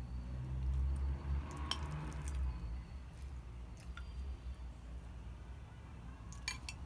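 Close-miked wet chewing and squishing of food in the mouth, heaviest in the first couple of seconds, with a few sharp clicks scattered through, the last near the end.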